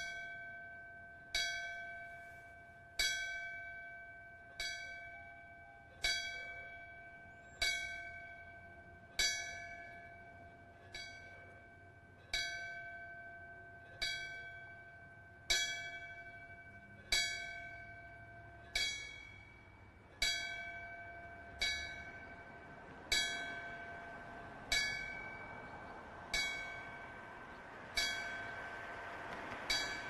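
Fire department ceremonial bell, a small polished bell on a stand, struck by hand about once every second and a half, about twenty strikes here, each ringing out and fading before the next. It is a memorial toll of 24 strokes, one for each life lost.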